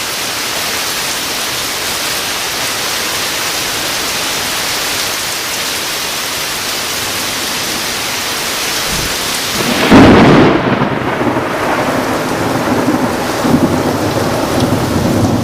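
Heavy rain pouring down steadily. About ten seconds in, a loud, close thunderclap cracks, then rumbles on under the rain.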